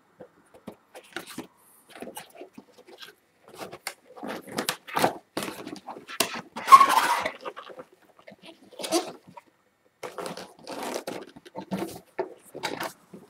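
Cardboard packaging being handled: a white inner box is slid, flexed and opened, giving irregular scraping and rustling of card and paper, loudest about seven seconds in.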